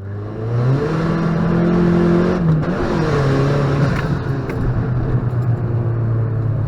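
Dodge Caliber SRT-4's turbocharged 2.4-litre four-cylinder running through its aftermarket exhaust while the car is driven to warm up. Engine pitch climbs over the first second, holds, drops about two and a half seconds in, then runs steady at a lower pitch.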